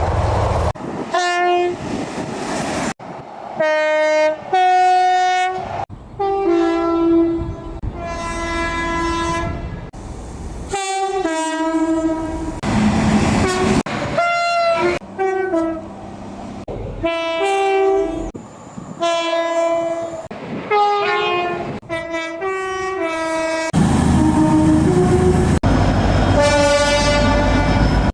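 A quick succession of British train horn blasts from different trains, many of them two-tone with the pitch stepping between two notes, joined by abrupt cuts. In the last few seconds a passing train's rumble and wheel noise sound under a long horn.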